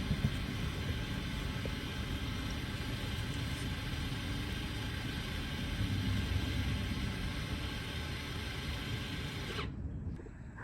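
Steady mechanical whir of the 2020 Toyota Camry's rear electronic parking brake motors winding the caliper pistons back in service mode, heard from inside the cabin. It cuts off abruptly near the end.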